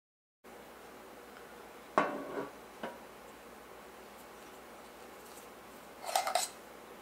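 A metal loaf pan set down on a wooden tabletop with a single clunk and a short ring about two seconds in. Near the end, small stacked metal cups clink against each other as they are pulled apart.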